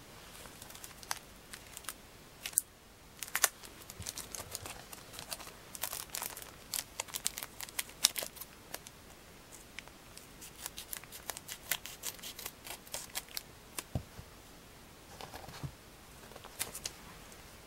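Scissors snipping through the top of a shiny Calbee baseball-card packet and the wrapper crinkling as it is handled, in irregular sharp crackles and clicks, densest through the middle. A single dull knock comes near the end.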